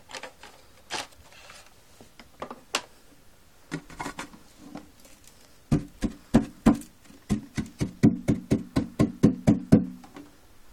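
Handling clicks, then about four seconds of quick knocking, some four or five knocks a second, as the plastic dust compartment parts of a Hoover Turbopower Freedom vacuum cleaner are tapped to shake out the collected dirt.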